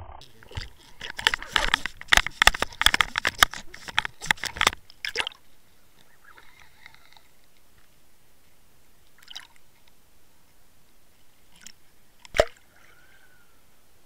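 Underwater camera recording: a fast flurry of sharp knocks and clicks for about five seconds as a pike hits at the swimbait lure on the line, then quiet water noise with a few scattered clicks and one sharp loud click near the end.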